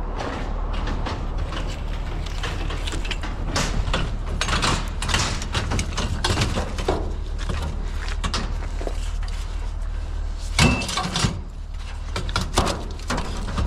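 Scrap steel being shoved and packed into a full vehicle load: repeated knocks, scrapes and clanks of metal on metal, with one sharp ringing clang a little after ten seconds in, over a steady low hum.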